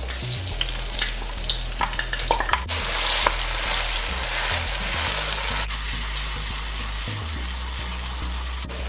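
Ground green seasoning of onion, green onion, garlic and wiri wiri peppers sizzling in hot oil in a nonstick wok while being stirred with a spatula. A few scrapes and taps of the spatula on the pan come during the first three seconds.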